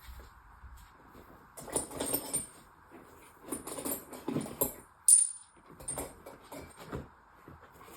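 Steel sockets and hand tools clinking and rattling as they are handled, with one sharp metallic click and short ring about five seconds in.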